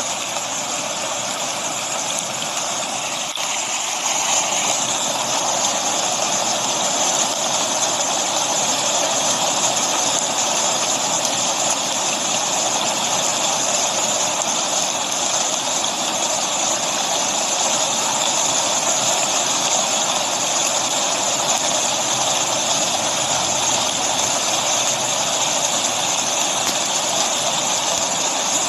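Steady rushing of rain mixed with a waterfall, a constant even noise that grows a little louder about four seconds in.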